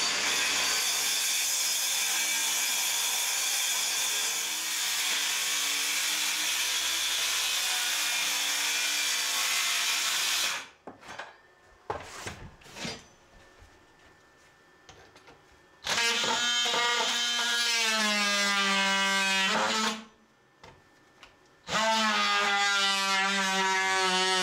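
Handheld power tool cutting through a mobile home's plywood subfloor, at the edge of a rotted section. A long steady run of rough cutting noise for about ten seconds, then a pause with a few knocks, then two shorter runs of a steady, whining tool note that start and stop abruptly.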